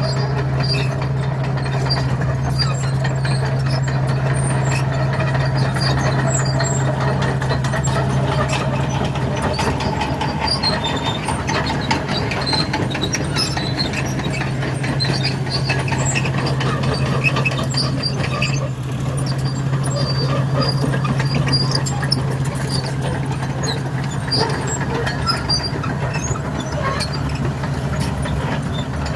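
Komatsu D61 bulldozer's diesel engine running steadily under load, with scattered clanking and squeaking from the tracks and blade as it breaks up the road's bitumen surface seal.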